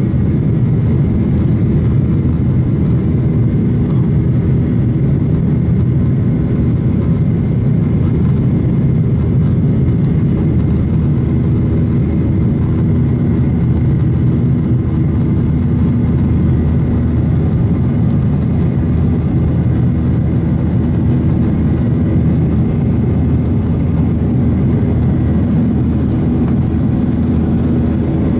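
Airliner cabin noise during the climb after takeoff: the jet engines and airflow make a steady low rumble, with a faint steady whine above it.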